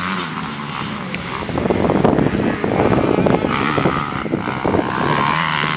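Motocross dirt bikes racing on the track, engines revving up and down, with gusty wind on the microphone loudest in the middle.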